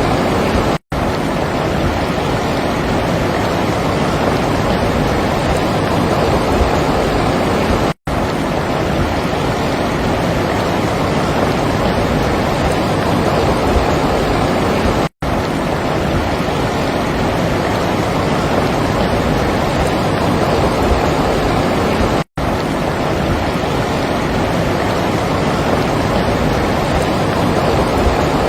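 Steady rushing water noise, cutting out briefly four times at even intervals of about seven seconds.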